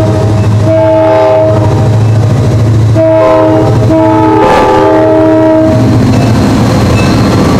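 R.J. Corman diesel locomotive sounding its multi-chime air horn for a grade crossing: several blasts of about a second each, the last held nearly two seconds. Under the horn runs the steady low drone of its diesel engine, which grows louder near the end as the locomotive passes close by.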